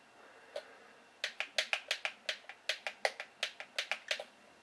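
A quick run of light, sharp clicks, about three or four a second, starting a little over a second in and stopping near the end.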